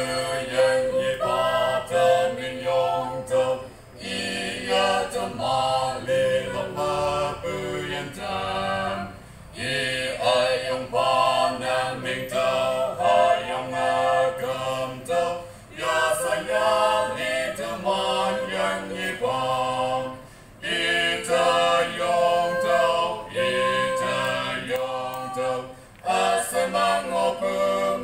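Mixed vocal quartet of two men and two women singing a Christian song, in phrases broken by short pauses about every five or six seconds.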